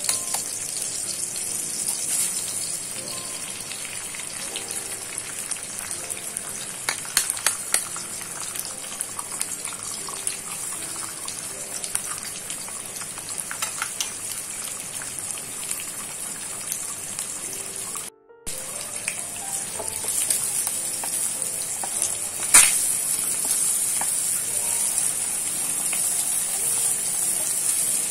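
Eggs and salted fish frying in hot oil, a steady sizzle with scattered spitting crackles that grows louder in the second half. A single sharp knock about two-thirds of the way through stands out above the sizzle.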